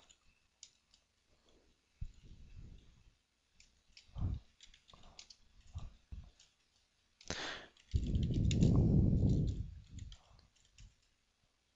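Typing on a computer keyboard: scattered short key clicks. A louder, low, muffled rumble lasting about two seconds comes in the latter part.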